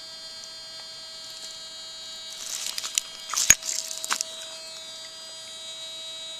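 Steady threshold hum of a Fisher Gold Bug metal detector. Brief rustling comes in about halfway through, with a sharp click just after it.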